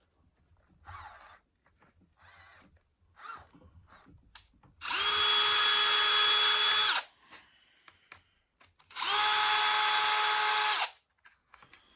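Power drill driving screws: two runs of about two seconds each, each a steady whine that starts and stops sharply, after a few light handling clicks.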